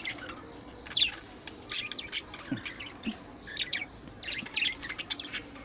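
Birds calling: a quick, irregular series of short, high chirps and harsher calls, some falling in pitch, often overlapping.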